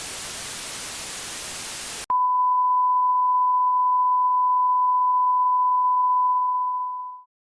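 A hiss of static-like noise for about two seconds cuts off abruptly. A steady single-pitched 1 kHz tone, a broadcast test tone, follows and holds for about five seconds before fading out near the end.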